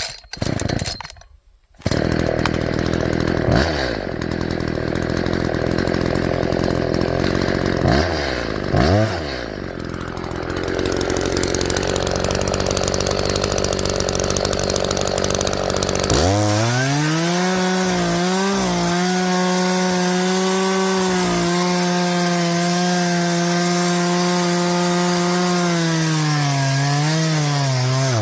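Echo two-stroke chainsaw idling low from about two seconds in, revved briefly twice. Just past halfway it goes to full throttle and holds a high steady pitch, dipping briefly now and then as the chain cuts through wood.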